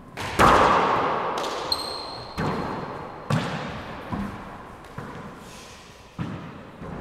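Four-wall handball rally: a rubber handball struck by gloved hands and smacking off the walls and hardwood floor, about one hit a second, each ringing with a long echo in the enclosed court. The loudest hit comes just after the start, and a short high squeak sounds about two seconds in.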